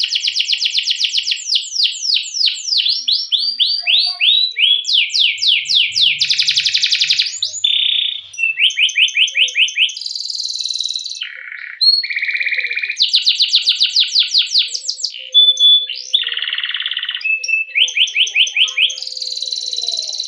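Domestic canary singing a long, rolling song: runs of quick repeated down-slurred chirps alternate with fast buzzing trills, the phrase changing every second or two.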